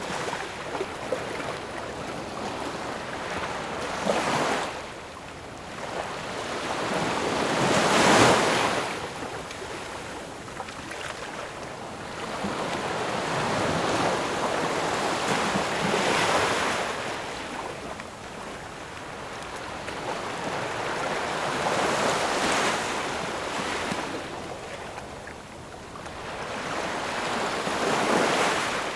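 Waves breaking and washing back, five surges a few seconds apart, each swelling to a hiss and then falling away; the biggest comes about eight seconds in.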